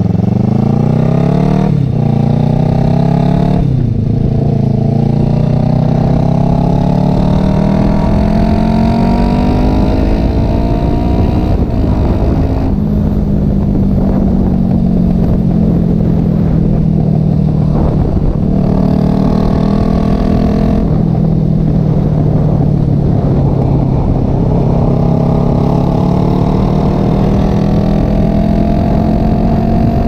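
Kawasaki Vulcan 500's parallel-twin engine through fishtail exhaust tips fitted with homemade silencers, heard from the rider's seat while accelerating through the gears. The engine note climbs, drops at gear shifts about two and four seconds in and again about twelve seconds in, then holds and eases with the throttle before climbing again near the end.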